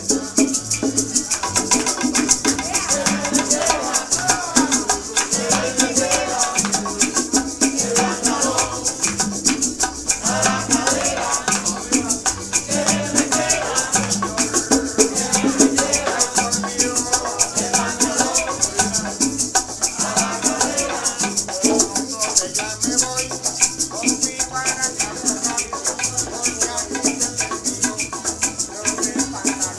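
Cuban dance music: maracas shaking steadily over plucked guitar-like strings and a rhythmic bass pulse.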